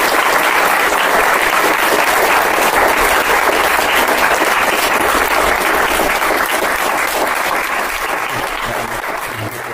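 Audience applauding, a dense steady clapping that gradually fades toward the end.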